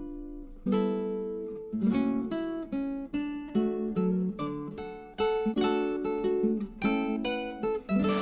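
Background music: an acoustic guitar strumming and picking chords, each one ringing out and fading before the next.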